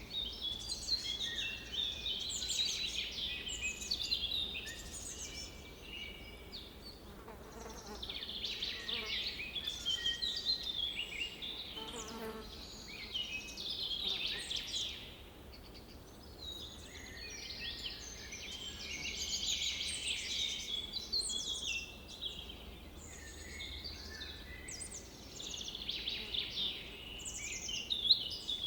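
Songbirds singing: bouts of quick chirps and trills that come and go every few seconds over a faint steady outdoor hum.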